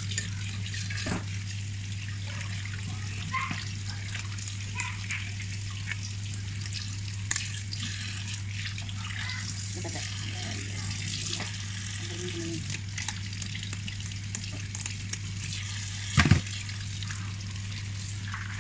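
Tap water running steadily into a stainless steel sink as a fish is scraped and rinsed under it, with small scattered clicks and knocks. About sixteen seconds in, a single loud metallic clank as the kitchen scissors are put down in the steel sink.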